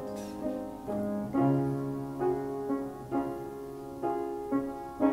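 Upright piano playing the slow closing passage of a song, chords and notes struck every half second to a second, each ringing on and fading before the next.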